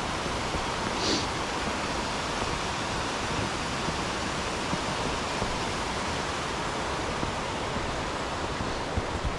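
Steady rushing of a mountain stream, an even wash of water noise with no change in level.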